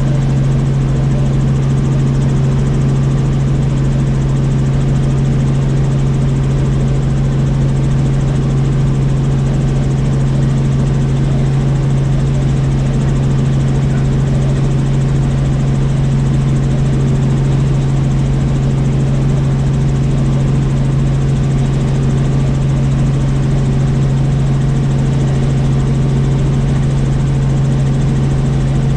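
Helicopter in steady flight: the engine and rotors make a loud, even drone with a strong low hum that holds without change.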